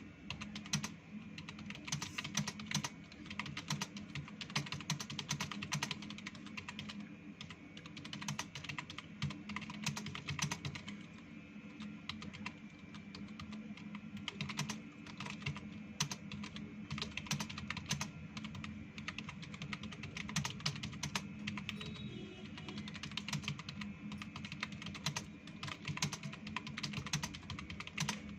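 Fast, continuous typing on a computer keyboard: a dense stream of key clicks with only short pauses.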